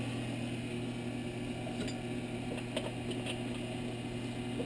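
Tools clicking and clinking faintly as a hand picks through a metal drawer of turning tools and drill bits, over a steady electric hum.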